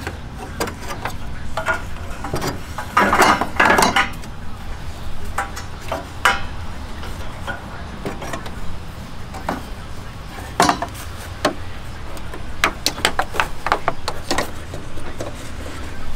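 Hand work on a vehicle: irregular clicks, taps and light clatter of parts and tools being handled. There is a denser burst of clatter about three seconds in and another run of sharp clicks near the end.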